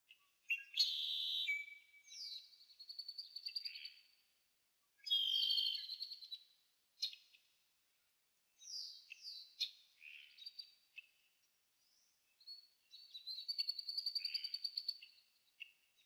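Jungle ambience of bird calls: high chirps, falling whistles and fast trills in separate bursts, with short silences between them. The loudest bursts come about a second in and about five seconds in.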